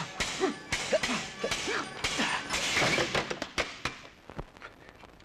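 Dubbed fistfight sound effects: a quick series of thuds and whacks mixed with short grunts. A heavier crash comes about three seconds in, and the blows stop about a second later.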